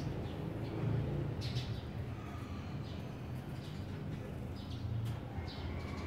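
Sparrow chirping: a handful of short, separate chirps over a steady low rumble of background noise.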